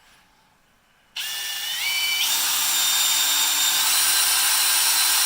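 Electric drill starting suddenly about a second in, its motor whine climbing in pitch for about a second and then running steady, as a Champion XL28 bit bores into a half-inch grade 8 steel bolt.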